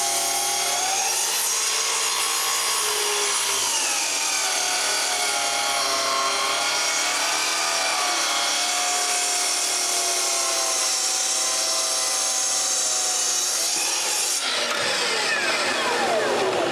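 Power saw cutting wood, its motor whine rising and falling with the load, then switched off about fourteen seconds in and winding down with a falling whine.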